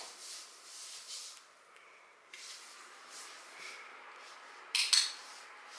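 A training clicker clicks sharply twice in quick succession, its press and release, about five seconds in, marking the guinea pig's nose touch to the target finger. Before it there are only a few faint soft sounds.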